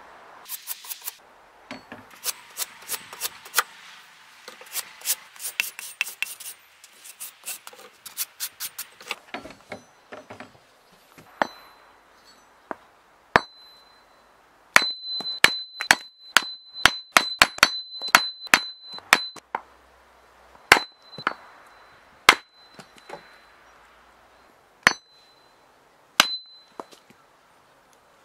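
Hatchet striking wood in an irregular series of sharp knocks: quick lighter taps in the first half, harder spaced blows later. Several of the later blows leave a short high metallic ring.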